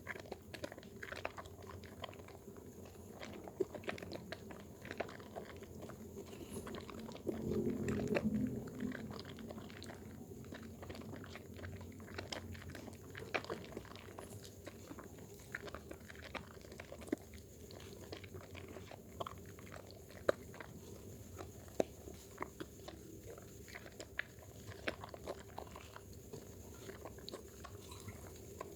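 Dermythol soap being lathered with water, a steady run of small wet squishes and crackling clicks, with a louder, fuller squelch about eight seconds in.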